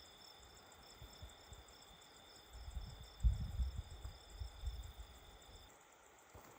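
Night insects chirping steadily, a high trill with a pulsing note above it, which stops suddenly near the end. A stretch of low rumbling and thumps on the microphone comes in the middle.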